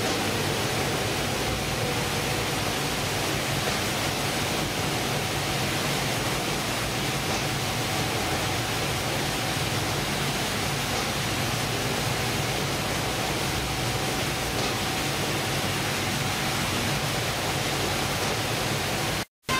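Steady machinery noise of a trawler's onboard fish-processing line, with conveyors and processing machines running: an even hiss with a faint low hum, cutting out for a moment near the end.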